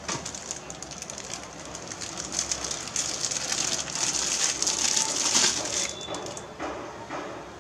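Thin plastic wrapping crinkling and crackling as a power adapter is handled and pulled out of its bag. The crackle grows loudest in the middle and dies away near the end.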